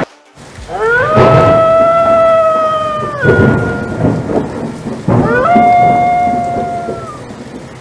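A wolf howling twice, each howl sweeping up into a long held note and dropping away at its end. Behind it are steady rain and thunder.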